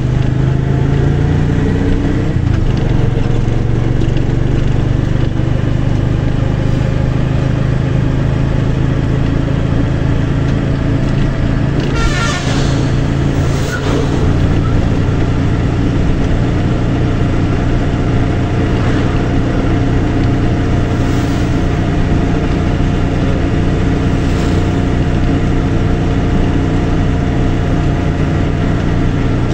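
A motor vehicle's engine running steadily on the move, heard from on board, with road noise. About twelve seconds in, a brief wavering higher sound rises over it.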